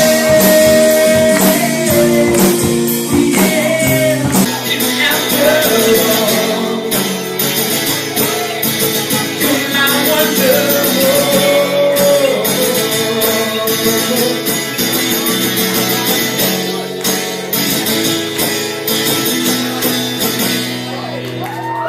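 A rock band playing live, with a singer over guitar and drums.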